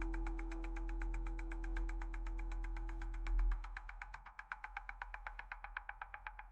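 Background music: a held tone fades out a little past halfway, over a fast, even ticking of about nine beats a second that carries on alone.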